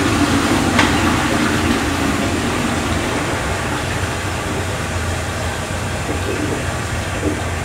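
Steady low drone of a ferry's engines heard inside an onboard toilet, with the tail of a toilet flush fading away over the first few seconds and a single click about a second in.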